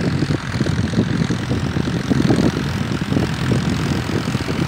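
New Holland Al-Ghazi 65 hp tractor's diesel engine running steadily under load as it pulls an 11-tine cultivator through the soil.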